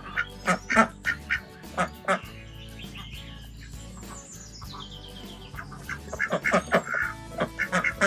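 Background music with many short poultry calls laid over it; the calls come in quick succession near the end.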